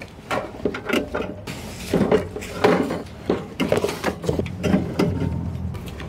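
Aluminium soft-drink cans being set one after another into a portable fridge's wire basket, knocking against the wire and each other in a run of irregular clacks, with a brief rustle about one and a half seconds in.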